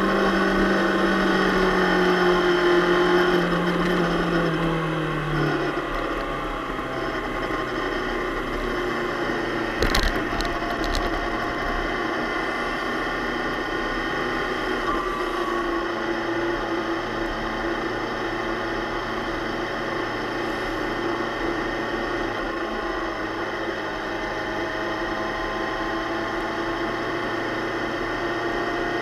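Suzuki GSX-R600 inline-four engine running on track; its note falls over the first five seconds or so, then holds steadier. A single sharp knock about ten seconds in.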